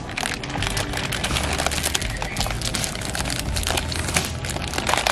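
Plastic candy wrappers crinkling and rustling in irregular crackles as wrapped chocolate bars are grabbed off a shelf and bags of candy are handled.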